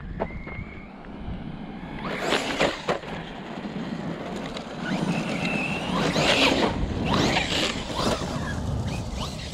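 Custom 1/10 scale ARRMA Siren 6S electric RC truck driving on gravel. A high motor whine comes briefly near the start and again about five seconds in, and there are three bursts of tyres spraying gravel, the loudest about six seconds in.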